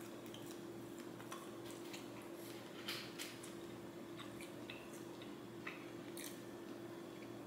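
Quiet chewing of fried rice, with a few light clicks and scrapes of a metal spoon against a plastic takeout container, over a steady low hum.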